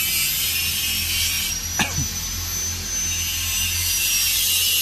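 Steady hissing, whining machine noise, like a power tool or similar motor running nearby, with a brief swish about two seconds in.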